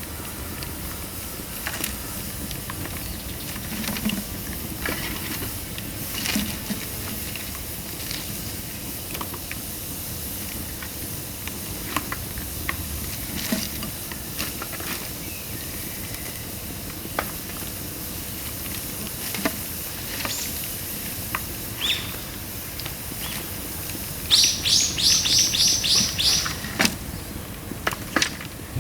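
Dry bamboo burning in a pail-can fire, crackling with scattered sharp pops over a steady patter of rain. Near the end a bird calls a rapid run of about eight high notes.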